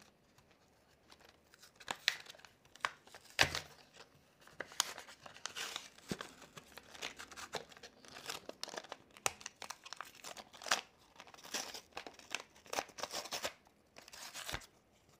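A cardboard-backed plastic blister pack being torn open by hand: irregular crackling of the plastic and ripping of the card backing, with a few sharper snaps.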